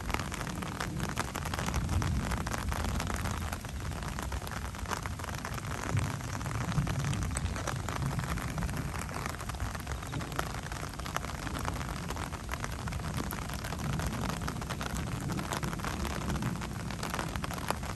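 Thunderstorm: steady rain with scattered drop ticks, over a low thunder rumble that swells a few times.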